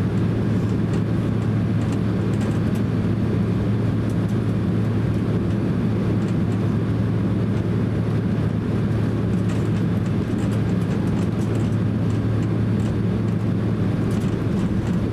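Boeing 767-300 cabin while taxiing: the twin jet engines running at taxi idle, heard from inside as a steady low drone with a constant deep hum and a few faint rattles.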